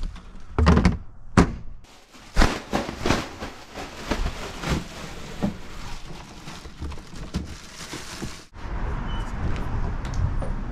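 A run of thumps and knocks over the first eight seconds, then, after a sudden change, the steady low rumble of a vehicle running.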